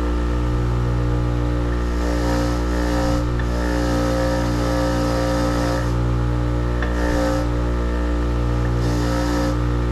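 A machine running steadily with an unchanging hum, with a hiss that comes and goes every second or two.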